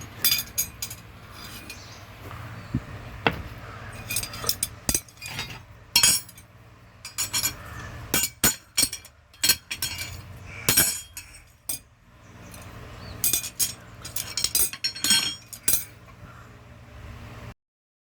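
Blacksmith's hammer striking iron on an anvil: irregular ringing blows, some coming in quick runs of several strikes, with pauses between.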